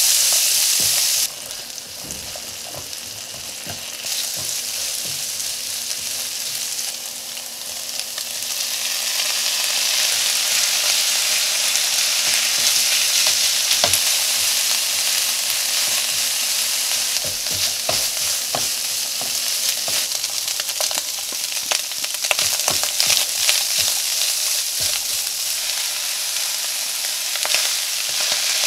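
Diced vegetables, ham and canned tuna sizzling in oil in a nonstick pan while a spatula stirs and scrapes them, with many short scraping strokes over a steady sizzle. The sizzle drops suddenly about a second in, then builds back up over the next several seconds.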